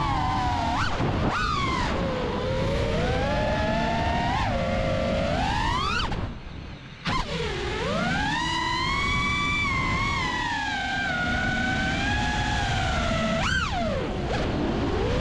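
Brushless motors of an FPV freestyle quadcopter (Blackbird v3 1975kv) whining, the pitch sliding up and down as the throttle changes, with wind and prop-wash rush on the onboard camera. About six seconds in the whine drops away almost to nothing for about a second, then comes back sharply.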